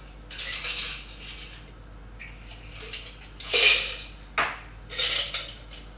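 Cocktail being mixed with glassware and bar tools: three short splashing, rattling bursts, the loudest about three and a half seconds in, with a sharp clink just after it.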